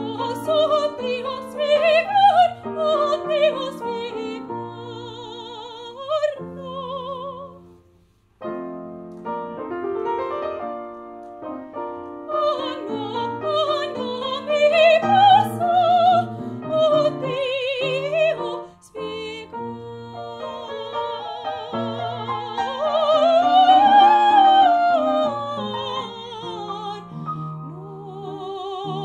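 A woman singing an operatic aria with a wide vibrato, accompanied by an upright piano. Both break off briefly about eight seconds in. The loudest moment comes near the end, on a phrase that climbs and falls back.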